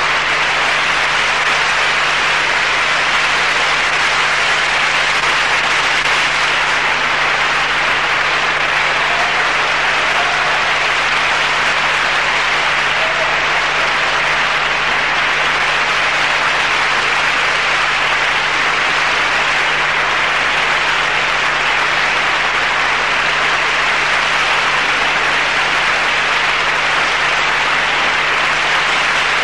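Audience applauding steadily, with a faint steady low hum underneath.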